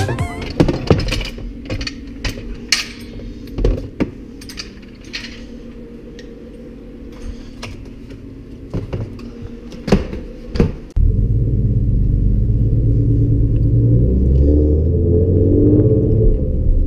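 Things being moved around in a storage cabinet: scattered clicks, knocks and light clinks of cans and containers. About eleven seconds in it cuts abruptly to a Ford Mustang's engine running steadily on the move, heard from inside the cabin.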